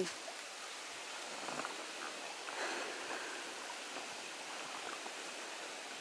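Steady outdoor ambience: an even background hiss with no distinct events.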